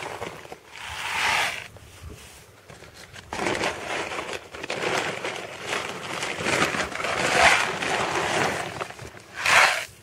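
Horticultural grit scooped by hand from a plastic bag and scattered over compost in a pot: gravelly rattling and crunching with rustling of the bag, in several spells.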